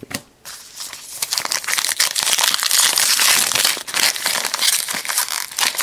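Foil wrapper of a Topps Gypsy Queen baseball card pack crinkling and tearing as it is pulled open by hand. The crackle is steady and loudest midway, made of many quick crackles.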